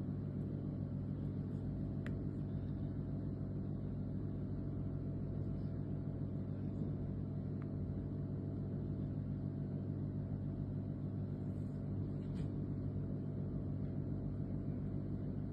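Steady low rumble of a running vehicle engine, holding an even pitch, with a couple of faint clicks.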